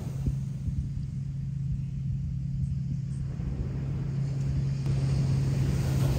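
A steady low engine-like drone held on one pitch over a low rumble, starting abruptly at the outset.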